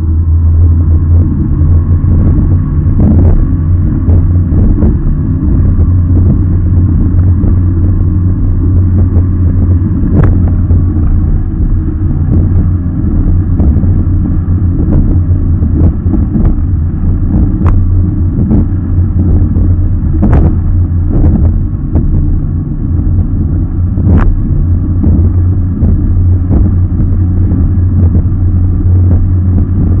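Engine of a racing rigid inflatable boat running steadily at speed, a loud low drone, with a few sharp knocks as the hull slaps the chop.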